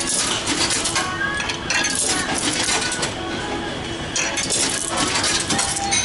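Coins being fed into a meal-ticket vending machine, clinking as they drop inside it.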